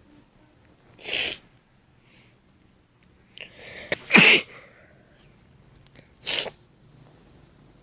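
A person sneezing three times in a row, the middle sneeze the loudest, with a breath drawn in just before it.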